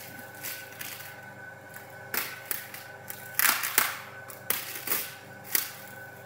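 Screw jack lifting system running with a steady hum, under irregular sharp clicks and knocks, the loudest a little past three seconds in.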